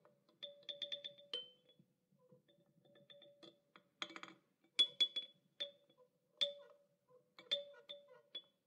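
Quiet background music: a sparse melody of short notes with sharp starts, each ringing briefly.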